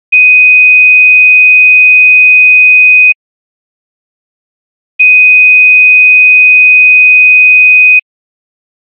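Pure sine-wave test tone at about 2.5 kHz, played twice for about three seconds each, with a two-second silence between; it is a frequency ear-training question.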